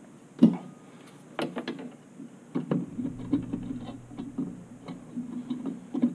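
Metal clicks and taps of a new oven igniter's bracket and a screwdriver against the gas oven's burner as the igniter is set in place. One sharp knock comes about half a second in, then scattered lighter clicks.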